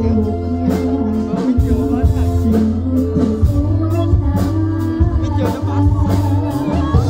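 A woman singer (sinden) singing a Banyumasan lengger song into a microphone over Javanese gamelan accompaniment, with held metallophone notes, a deep bass line and regular drum strokes.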